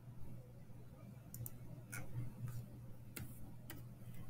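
A few faint, separate clicks from a computer mouse and keyboard, one of them a quick double click, over a steady low hum.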